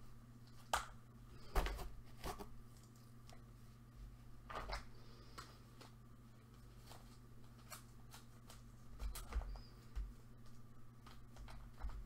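Gloved hands handling and rummaging through small craft items, making scattered light rustles and clicks, with a steady low hum underneath.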